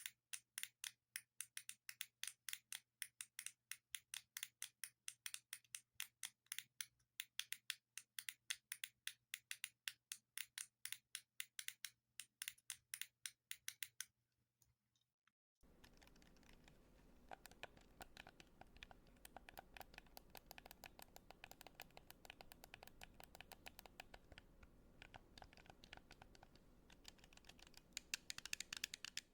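Close-up clicking of buttons, sharp separate clicks several times a second. About halfway through the sound cuts out briefly. A second take follows with a steady background hiss and quicker, fainter clicking.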